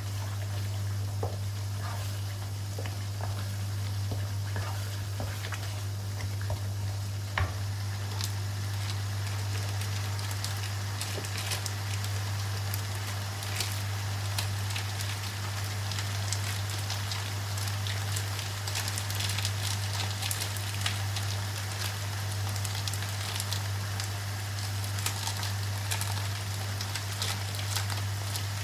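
Chili paste sizzling in a wok over a gas flame. It is scraped with a wooden spatula for the first several seconds, then fries on its own with many small pops and spatters that grow more frequent. A steady low hum runs underneath.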